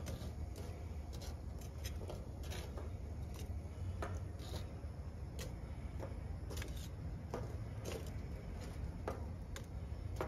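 Metal tongs clicking and tapping as lit charcoal briquettes are picked up and set down one by one on a sheet-metal tray. The light clicks come irregularly, about two a second, over a low steady hum.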